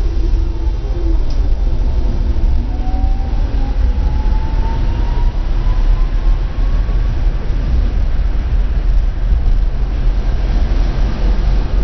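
Interior running sound of a Tatra T3-type tram under way: a steady low rumble of the bogies and wheels on the rails, with a thin whine that rises in pitch from about two to seven seconds in as the tram picks up speed.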